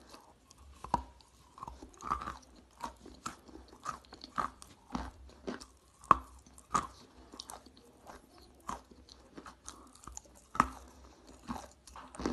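A person biting and chewing pieces of chalk: a run of sharp, crisp crunches at an uneven pace, with two louder crunches about six seconds in and about ten and a half seconds in.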